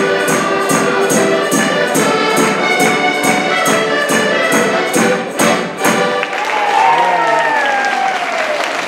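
Ensemble of diatonic button accordions with a hand-held drum keeping a steady beat, playing a lively traditional tune that ends on accented drum strokes about six seconds in. Applause and a cheer from the audience follow.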